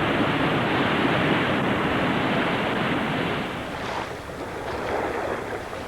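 Rushing water of a waterfall: a steady, even roar of falling water that drops away to a softer rush about three and a half seconds in.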